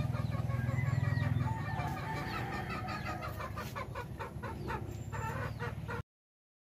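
Chickens clucking and calling in short repeated notes, over a low steady hum that fades about a second and a half in; the sound cuts off about six seconds in.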